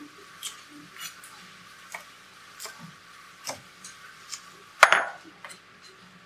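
Kitchen knife slicing okra on a plastic cutting board: slow, unevenly spaced taps of the blade on the board, with one louder knock and scrape about five seconds in.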